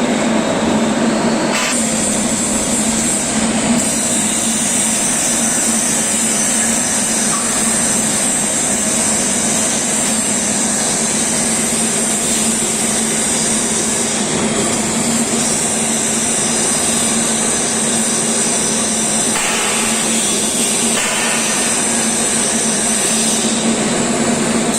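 TIG welding with argon: a steady electric buzz from the arc and welding machine with a high hiss, the hiss growing stronger about a second and a half in.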